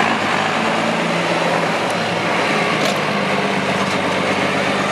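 Diesel pickup truck engine running steadily as the truck drives past on a busy street, a continuous low drone under traffic noise.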